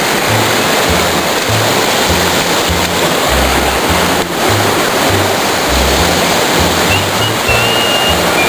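Background music with a bass line of short, changing low notes, laid over the steady rush of a waterfall.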